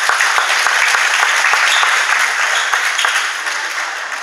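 Spectators clapping, a loud burst of applause that slowly fades toward the end.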